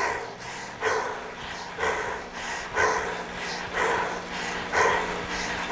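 Heavy panting breaths, evenly spaced at about one a second, from a rider catching their breath just after an all-out sprint on an indoor bike. A faint steady low hum runs underneath.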